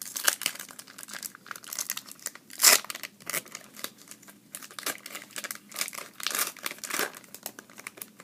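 Trading card pack wrapper being torn open and crinkled by hand: irregular rustling and tearing, loudest a little over two and a half seconds in.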